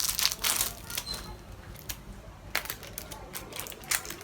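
Packaging crinkling and rustling in irregular bursts as it is handled and opened.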